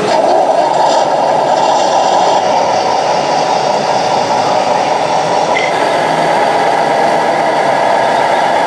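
Radio-controlled Peterbilt-style model semi tractor driving slowly, with a steady engine-like running sound.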